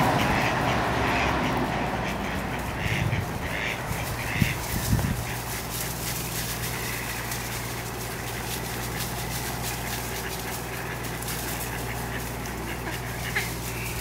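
Mallards quacking, a few short calls early on and one more near the end, over a low rumble that fades away in the first couple of seconds.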